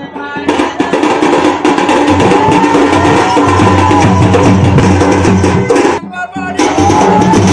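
Live folk drumming for a Danda Nacha dance: a hand-struck slung drum and a stick-played drum beat a fast, dense rhythm. The drumming drops out briefly about six seconds in, where a voice sings, then resumes.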